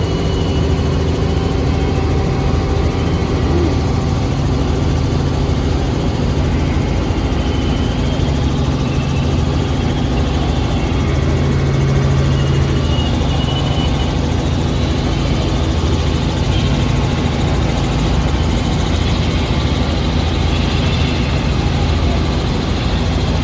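Steady drone of a helicopter in flight, heard from inside the cabin: engine and rotor noise with a low hum.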